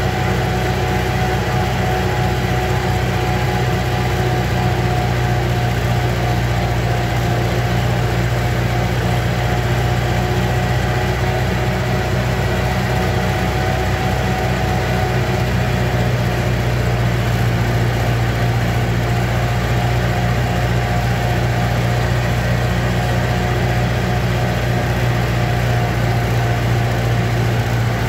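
Vintage tractor's engine running steadily while driving along, heard from the driver's seat, its low even tone holding the same pitch throughout.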